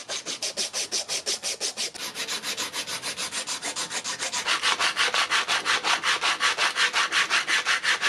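Hand sanding of a rusty, pitted iron wrench handle with abrasive, in rapid back-and-forth strokes of about seven a second. The strokes get louder about halfway through.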